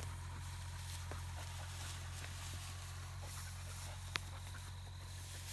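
Steady outdoor background noise: a low rumble under an even hiss, with a few faint ticks and one sharp click about four seconds in.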